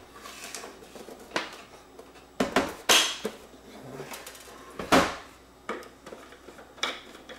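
Hard plastic housing and base plate of a robot vacuum's clean base knocking and clattering as they are handled, with a handful of sharp knocks, the loudest about three and five seconds in.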